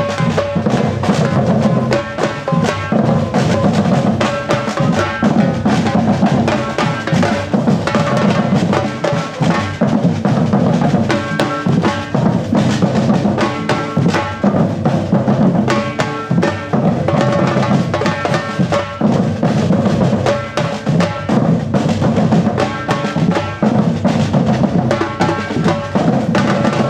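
Afro-Brazilian percussion ensemble (batucada) playing a steady, dense drum rhythm, deep bass drums under sharper higher strokes.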